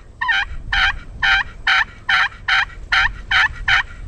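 A run of about nine turkey yelps, evenly spaced at about two a second, each a short two-note yelp that breaks downward and back up.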